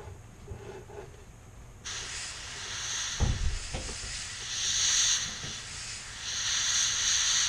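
Airbrush spraying red paint in a hissing stream that starts about two seconds in and swells and eases several times as the trigger is worked. Two low knocks come about three seconds in.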